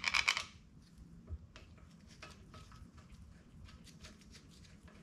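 Steel bolts and washers clinking as they are handled and started by hand into the front pump of a TH350 automatic transmission: a short jingling rattle at the start, then light, irregular metallic clicks.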